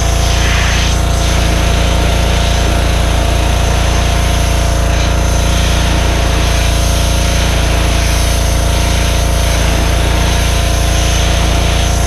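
Gas engine of a Power Stroke 2200 PSI pressure washer running steadily under load, with the hiss of the high-pressure water spray.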